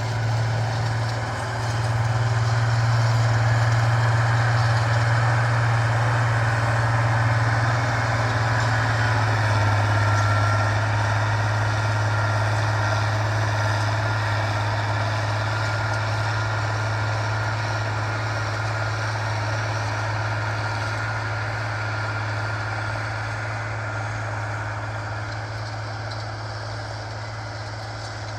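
Farm tractor engine running steadily with a constant low drone, slowly growing quieter through the second half.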